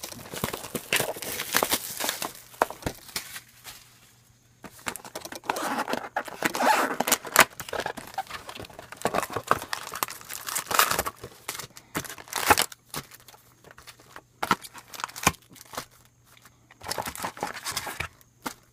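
Plastic wrap crinkling and tearing as a sealed box of trading-card packs is unwrapped and the packs are pulled out: irregular rustles and crackles with sharp clicks, pausing briefly a few times.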